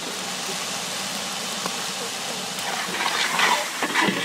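Biryani masala of onion, tomato, ginger, garlic and herbs frying in oil in a large pot over a wood fire: a steady sizzling hiss. The oil has separated from the masala, the sign that it is cooked through.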